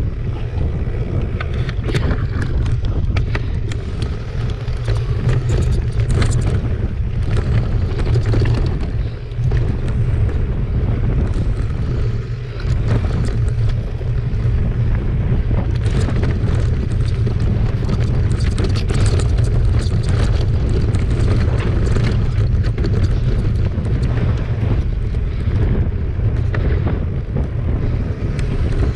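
Mountain bike ridden fast over a dry dirt trail, heard from a bike-mounted camera: a constant low wind rumble on the microphone, with tyre noise and frequent knocks and rattles from the bike over the rough ground.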